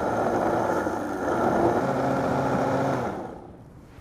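Countertop blender motor running at high speed, blending a liquid marinade of chopped pear, onion and soy sauce to a smooth purée. About three seconds in it is switched off and spins down.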